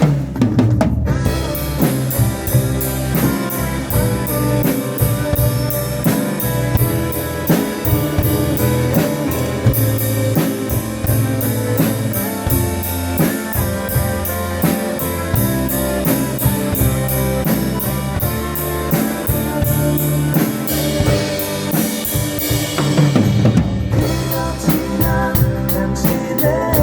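Drum kit played along to a song backing track with guitar: a steady beat on kick and snare with evenly repeating cymbal strokes, and a brief change in the cymbal pattern near the end.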